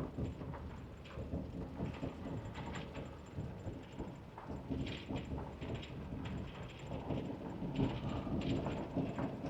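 Wind buffeting the microphone: an uneven low rumble with gusty swells.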